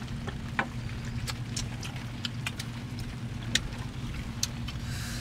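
Steady low engine hum, with scattered sharp clicks and taps at irregular moments.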